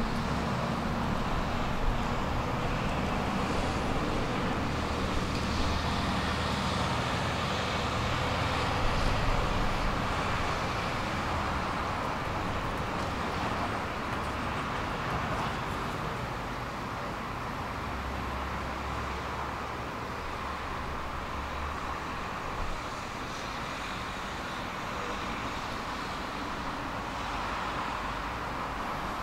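Tram running along its track with a steady rumble of wheels and motor, slowly getting quieter over the stretch.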